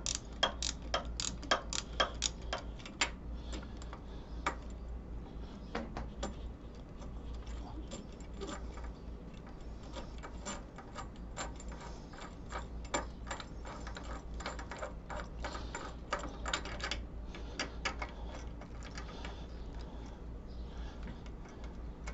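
Ratcheting box-end wrench clicking in quick runs as it backs a long handlebar riser bolt out of a Harley-Davidson's triple tree, with pauses between the runs.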